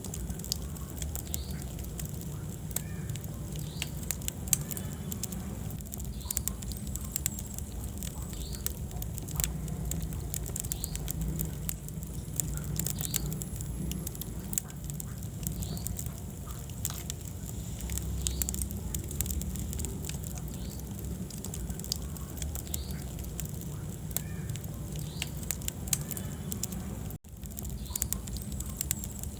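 Wood fire burning in a fireplace: a steady low rumble of the flames with frequent irregular crackles and pops from the burning logs. The sound cuts out for a split second near the end.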